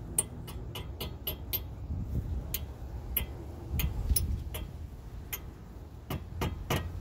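A hammer lightly tapping a cotter pin into the hole through the castle nut on a new outer tie rod end: a string of sharp taps, about two a second. The pin is not going in all the way because it is not straight through the nut's slot, so the nut needs turning a little further.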